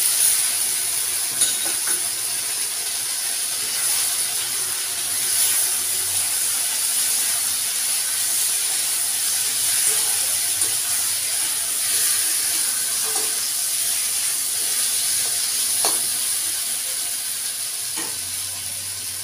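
Potatoes and poppy-seed paste sizzling in hot oil in a wok, a steady hiss while the paste is fried down. A metal spatula stirs and scrapes, clicking against the pan a few times.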